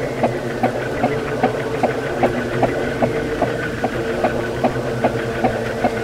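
Ceiling fan running with a steady hum and an even ticking, about two or three clicks a second, plus a faint high tone that slowly rises and falls.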